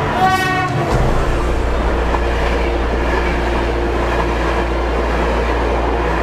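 ADtranz DE2000 diesel-electric locomotive passing at speed and sounding a brief horn blast near the start, followed by the steady low rumble and rush of the intercity coaches going by.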